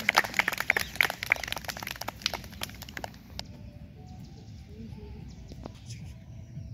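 A small group clapping, the individual claps quick and uneven, cutting off suddenly about three seconds in. After that, faint outdoor background with a few bird chirps.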